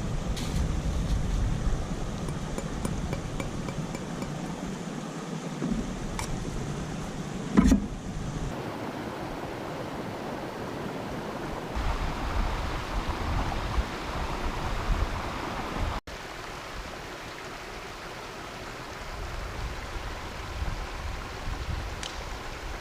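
Outdoor riverbank ambience: a steady rush of wind and flowing water, with a few light clicks and a thump about eight seconds in. The background changes abruptly twice.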